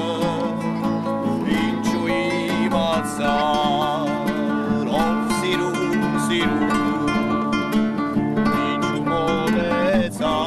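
Classical acoustic guitars strummed and picked, with a man singing a wavering melody over them.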